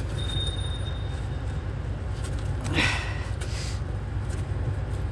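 Steady low rumble of an idling engine, with a brief vocal sound about three seconds in.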